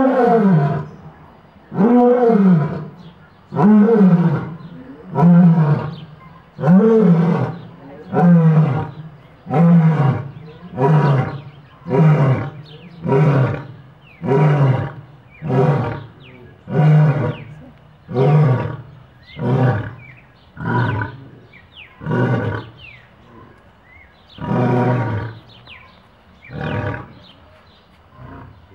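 Male lion roaring in a full bout of about twenty calls. The first few are long moaning roars that rise and fall in pitch, about two seconds apart; they give way to shorter grunts a little over a second apart, which grow weaker and further apart toward the end.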